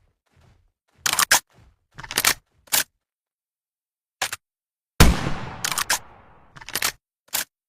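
Improvised shotgun sound effect: a few short, sharp mechanical clacks, then a loud bang about five seconds in that dies away over more than a second, followed by more clacks.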